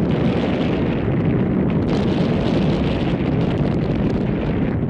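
Heavy jet airliner's engines: a steady, loud, low rumble with a crackling edge and no clear whine.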